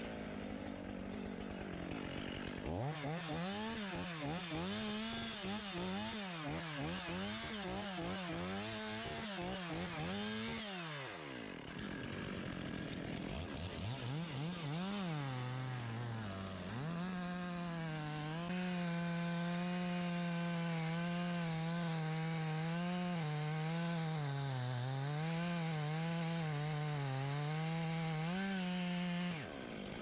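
Two-stroke chainsaw bucking a felled oak trunk into rounds. Its engine pitch rises and falls repeatedly at first, drops back to a lower speed around eleven seconds, then holds steady under load in the cut from about seventeen seconds, and cuts off suddenly near the end.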